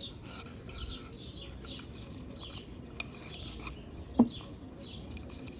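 Birds chirping repeatedly in the background over soft rubbing and handling sounds, with a faint click about three seconds in and a brief, sharp, louder sound a second later.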